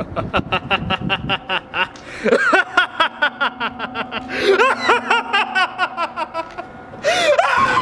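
A man laughing maniacally in rapid, evenly spaced bursts of 'ha', about six a second at first. The laughter swings up and down in pitch and ends in a loud drawn-out burst near the end.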